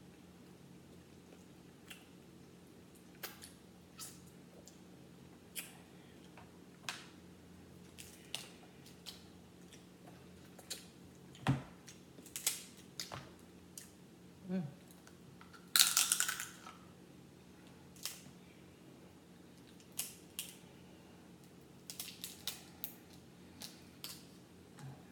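Crab leg shells being cracked and pulled apart by hand: scattered sharp cracks and snaps, with a louder burst of crackling about sixteen seconds in. A faint steady hum runs underneath.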